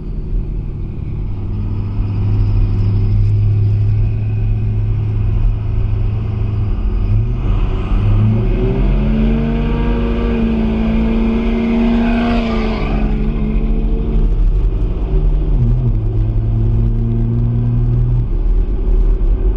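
Truck engine running steadily, then opened up to full throttle about seven seconds in. Its pitch climbs with a rising whine through several seconds of hard acceleration, then it eases back to a steady drone about fifteen seconds in.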